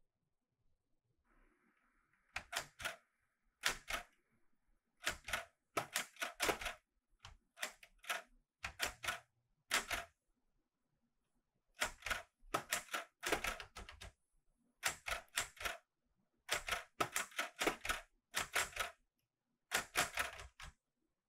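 Clover 810S typewriter keys struck by hand in quick runs of sharp clacks, cluster after cluster with short pauses between, and a longer pause of about two seconds near the middle.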